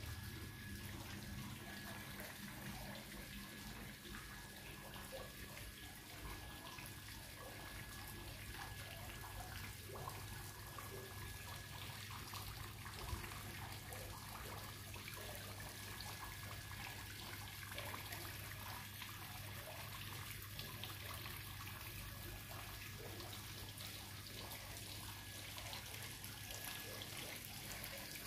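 Small courtyard fountain trickling into its pool, faint and steady, with a steady low hum underneath.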